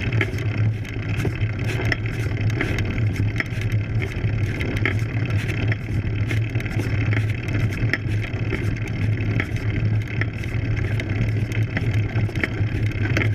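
Road bike climbing a steep dirt road, heard through a camera mounted on the bike: a steady low rumble of tyres on the rough surface and frame vibration, with faint ticks about once a second.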